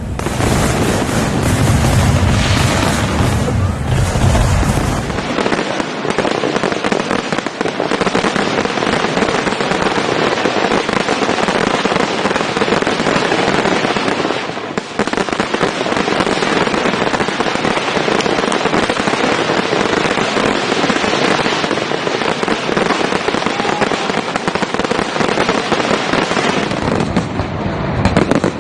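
Fireworks display: deep booming shell bursts for the first five seconds or so, then dense, continuous crackling and popping of many fireworks going off at once.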